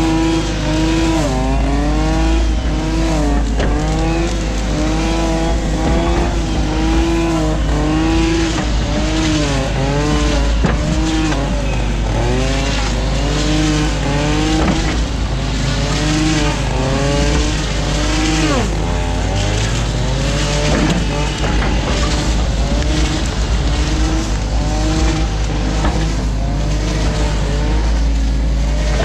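Mini excavator's diesel engine and hydraulic pump working under load, with a whine whose pitch rises and falls about once a second as the boom and bucket are worked.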